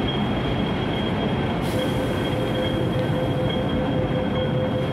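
MTR M-Train metro train running through a station platform: a continuous rumble with a steady high-pitched tone over it, and a second, lower tone that comes in about two seconds in.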